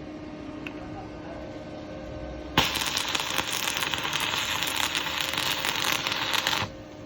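A 400-amp stick welding machine hums faintly. About two and a half seconds in, an arc is struck with a number-8 electrode and crackles steadily for about four seconds, then cuts off suddenly as the arc is broken.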